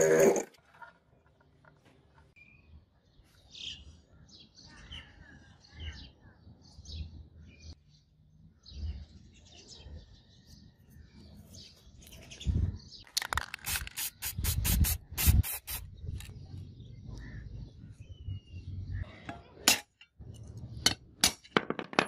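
Faint bird chirps in the background, then a quick run of sharp clicks a little past halfway, and a few more sharp clicks near the end.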